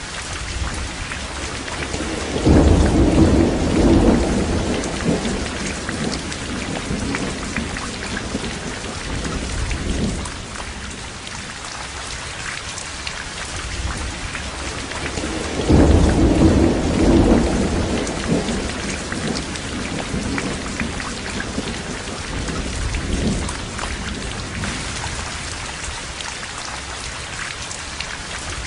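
Steady rain with rolls of thunder: two loud rumbles, about three seconds in and again about sixteen seconds in, and fainter ones between.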